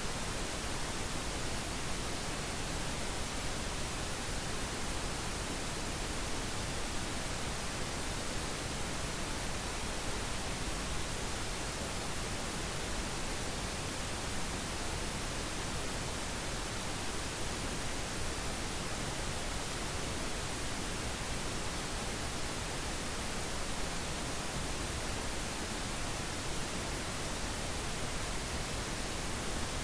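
Steady pink noise: an even, unchanging hiss with no other sound in it.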